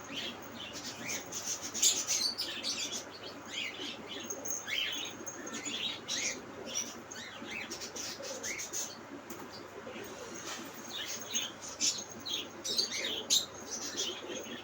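Many small birds chirping at once, a dense run of short, high chirps several a second over a steady low background murmur.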